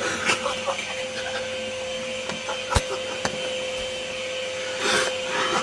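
Vacuum cleaner running with a steady motor hum, with scattered knocks and bumps, a sharp one near the middle, and a louder rush near the end.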